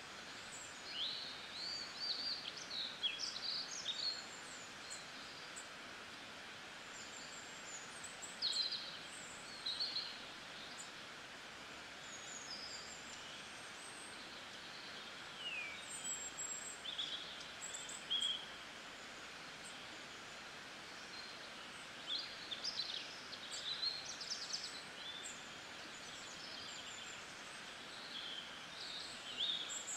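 Small birds chirping and calling in short high bursts, coming and going in clusters over a steady, quiet outdoor hiss.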